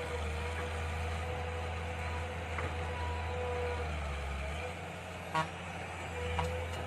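Mini excavator running steadily with a low engine drone and a steady whine. A single sharp clank comes about five seconds in.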